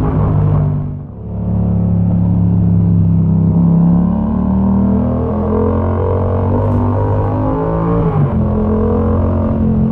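Yamaha MT-07's parallel-twin engine running through a Mivv exhaust with the dB killer removed, heard onboard while riding. The note drops sharply about a second in, then pulls steadily and rises. Near the end it changes pitch again.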